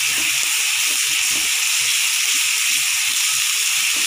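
Onion and ginger-garlic masala with green chillies sizzling steadily in mustard oil in a kadai, with a wooden spatula scraping and knocking against the pan as it is stirred.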